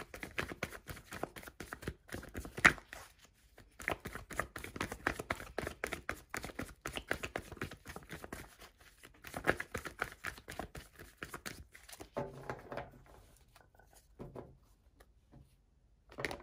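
A deck of tarot cards being shuffled by hand: a fast, dense run of card flicks with a couple of short pauses, stopping about three-quarters of the way through.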